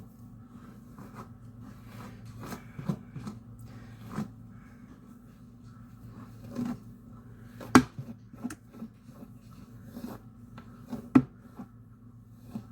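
Hairbrush being pulled through long hair in a run of irregular short rustling strokes, with two sharper clicks, one about eight seconds in and one about eleven seconds in.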